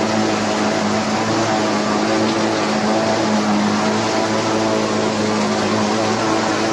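Hürlimann H-488-T tractor's diesel engine running steadily under load, driving a Mengele 290 forage harvester. The harvester's cutterhead and blower are chopping a standing crop for silage.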